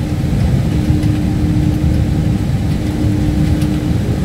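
Airbus A318 airliner's engines running at low thrust, heard from inside the cockpit as the jet rolls slowly along the runway: a steady low rumble with a hum that breaks off briefly every second and a half or so.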